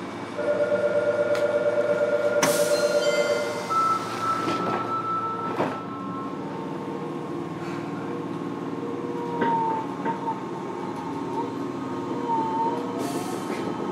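Inside a Fukuoka City Subway 1000N series car at a station, a pulsing door-closing warning tone sounds for about three seconds and the doors shut with a knock. Later a faint rising motor whine starts as the train begins to move off.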